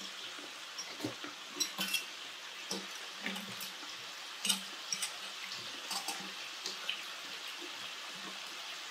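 Sliced duck sizzling steadily in a frying pan, with a few sharp clicks of chopsticks against bowls and dishes and some chewing.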